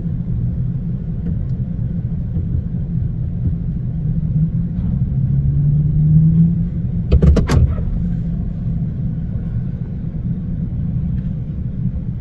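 Car engine and road noise heard from inside the cabin, a steady low rumble with the engine note rising a little in the middle. About seven seconds in there is a short burst of knocks, the loudest sound.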